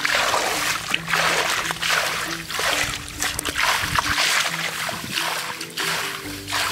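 Repeated splashing of shallow muddy water as hands scoop and slap through it while catching fish by hand, about one or two splashes a second.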